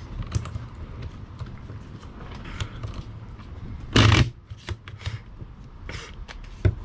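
Brass .223 cartridges clicking one by one into a polymer rifle magazine as it is loaded by hand. About four seconds in comes a louder clatter as the magazine is handled, and another sharp click follows near the end.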